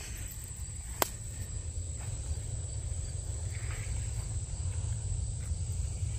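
Steady high-pitched chorus of insects such as crickets, over a low steady rumble on the microphone. A single sharp click comes about a second in.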